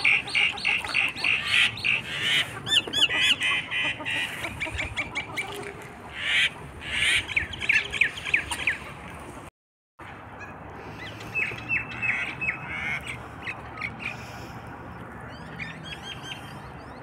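Ducks and other birds calling on a pond: quick runs of high squawking calls, dense and loud at first. After a short break in the sound about halfway through, the calls come sparser and fainter.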